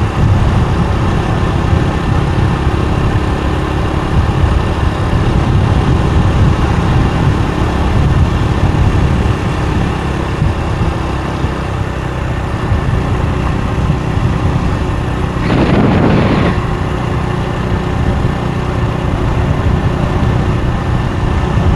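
Motorbike running steadily on the road, with a dense low rumble of engine and road noise throughout. A brief pitched sound, about a second long, cuts in about fifteen seconds in.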